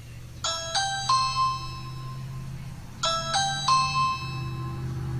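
Ring video doorbell chime: a short three-note rising electronic chime, played twice about two and a half seconds apart, as a firm press on the button registers.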